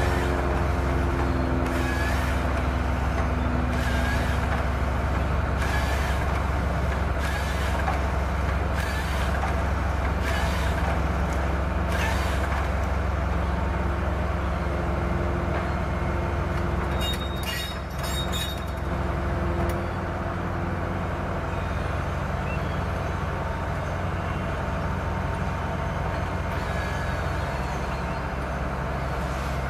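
SANY forestry excavator with a harvesting head: its diesel engine runs steadily with hydraulic whine, one whine falling in pitch over the first few seconds. Short bursts of hiss come every couple of seconds in the first half, and a cluster of sharp clicks and knocks comes a little past the middle.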